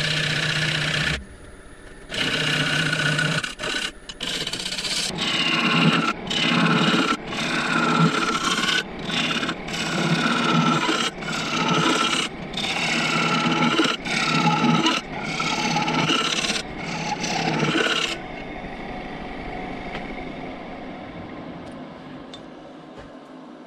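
Gouge cutting into a spinning apple-wood bowl on a wood lathe, a rough shearing and scraping in a string of passes about a second each with short breaks between. A few seconds before the end the cutting stops and only the quieter, steady run of the lathe with the spinning bowl is left.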